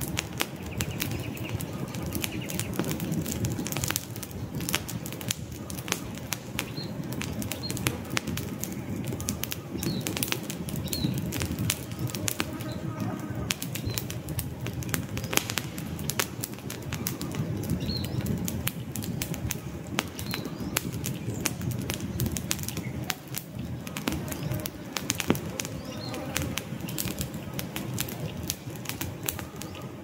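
Wood campfire burning, with a steady low rush of flames and dense, irregular crackling and popping from the burning logs. Faint high bird chirps come now and then.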